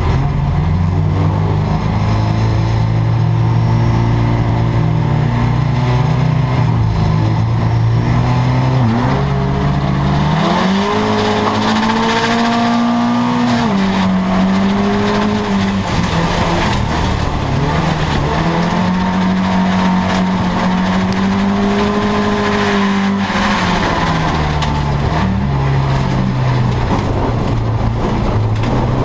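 Race car's engine heard from inside its stripped cabin during a speedway heat. It holds a steady low pitch for about the first eight seconds, then rises and falls several times as the driver accelerates and lifts.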